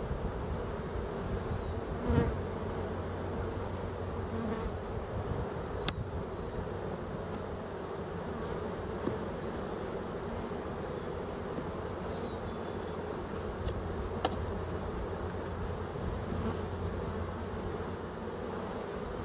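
Honey bees buzzing steadily around an open hive, with a few sharp clicks and knocks, about two, six and fourteen seconds in, as wooden frames are pried loose with a metal hive tool.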